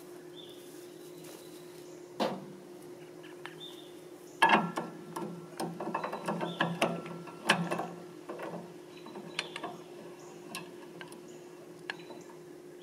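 Metal clanks, knocks and ratchet-like clicking as hand tools are worked on the front of a Lister-clone single-cylinder diesel engine that is not yet running. The loudest knocks come about four and a half and seven and a half seconds in. A steady low hum runs underneath.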